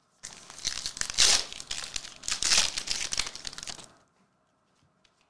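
The foil wrapper of a trading card pack being torn open and crinkled for about four seconds, loudest about one and two and a half seconds in, then stopping.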